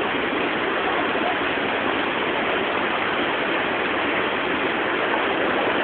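Steady rush of river water pouring over rocks in a cascade.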